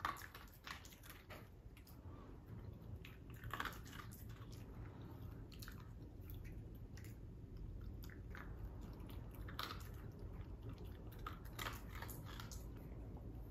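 A dog crunching pieces of dry kibble picked up off the floor, in faint irregular crunches.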